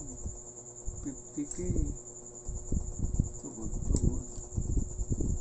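Irregular soft knocks and scrapes from hands and multimeter test probes working over a CRT TV's circuit board, over a steady high-pitched, fast-pulsing trill.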